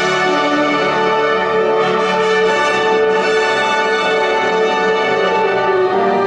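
Wind ensemble of brass and woodwinds playing loud, sustained chords, the harmony shifting near the end.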